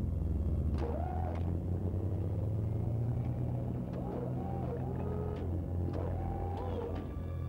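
Diesel engine of a heavy wheeled earthmoving machine running with a steady low rumble, with birds calling several times over it in short rising-and-falling calls.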